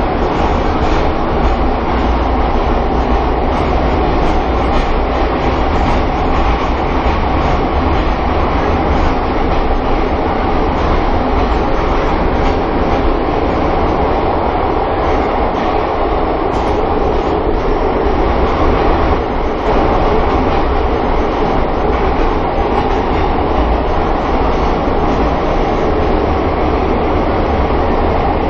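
Pyongyang Metro train running between stations, heard from inside the carriage: a steady, loud rumble of wheels on rails and running gear.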